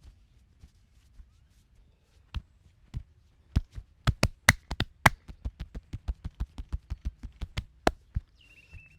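Percussive hand-strike massage: a run of sharp slaps, a few spaced ones at first, then a quick, steady patter of about four to five strikes a second that stops shortly before the end.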